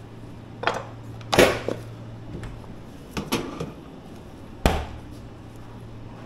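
A handful of sharp knocks and clacks of kitchen tools being set down and handled on a work surface, the loudest about a second and a half in and another near the five-second mark, over a steady low hum.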